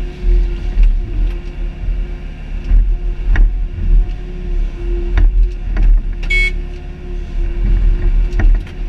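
Excavator's diesel engine and hydraulics running under load, with a steady low rumble and a held whine, as the bucket digs and dumps wet mud. Several sharp clanks from the bucket and arm linkage, and a brief high squeak about six seconds in.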